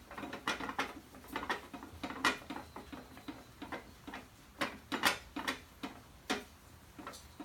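Hand socket ratchet clicking in short, uneven strokes while turning a 10 mm bolt on a motorcycle brake caliper cover, about two to three clicks a second.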